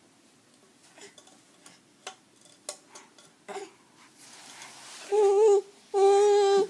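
A few faint clicks and taps, then near the end a baby gives two short fussing cries, each held on one steady pitch for about half a second.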